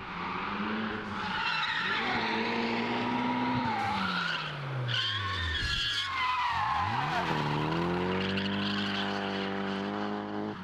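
Nissan S15 Silvia drift car's engine revving hard through a drift, with its tyres squealing and skidding throughout. The engine note falls sharply a little past halfway, then climbs back and holds high near the end.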